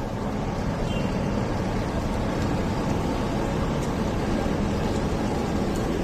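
Steady road traffic noise: a constant rumble and hiss of passing vehicles.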